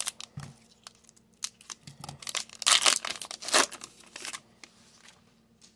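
A trading card pack wrapper being torn open and crinkled by hand, a run of crackling bursts that are loudest about halfway through as the stack of cards is pulled out, then dying away near the end.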